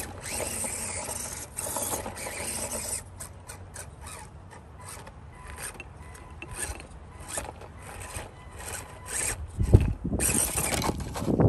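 Electric motor and gearbox of a small RC rock crawler running in short bursts, its tyres scrabbling and scraping over stacked stones and dirt. The busiest stretch is the first few seconds, then scattered clicks and scrapes, and a low thump near the end.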